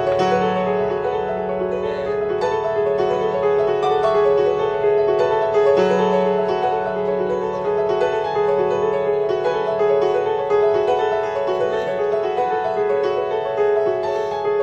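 Background piano music, sustained chords with a held bass note.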